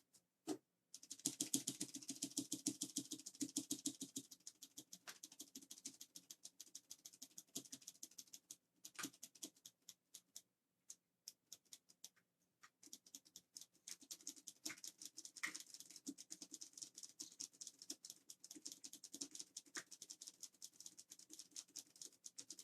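Faint, rapid clicking and clattering of plastic keyboard keycaps being handled, with a short lull about halfway through.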